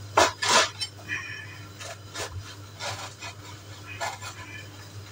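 Irregular scraping and rubbing strokes of kitchen work, with light clatter of dishes and utensils, over a steady low hum.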